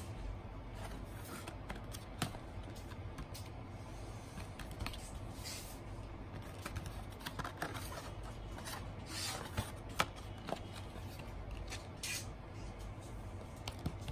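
Card CD sleeves and discs being handled: short papery swishes as discs slide out of the sleeves and the card rubs against fingers, with a few light clicks and taps.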